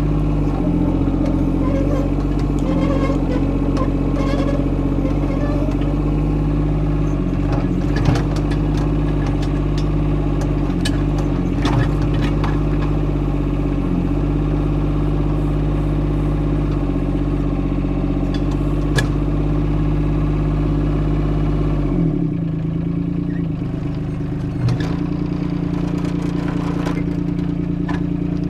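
The Yanmar three-cylinder diesel of a Kobelco SK13SR mini excavator running steadily, with a few sharp clanks. About 22 seconds in, the engine note changes abruptly and its low rumble drops.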